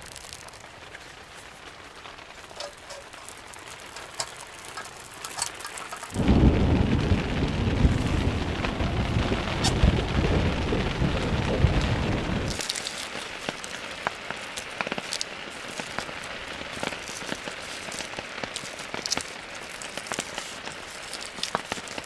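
Rain falling on a tent, heard from inside, with sharp ticks of drops throughout. About six seconds in, a loud, deep rumble of thunder lasts about six seconds and cuts off abruptly.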